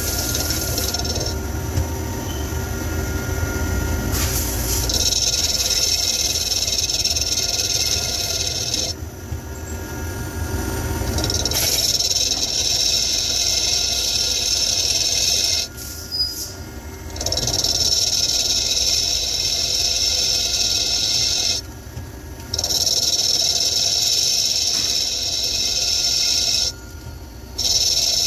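CNC lathe thread-cutting a cast gunmetal (BC bronze) part: a steady high hiss of the tool cutting over a machine hum. It comes in repeated passes of about four seconds, each broken off by a short pause of about a second before the next pass.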